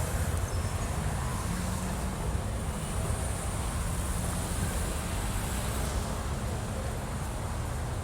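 Steady low rumble of road traffic, with no single vehicle or event standing out.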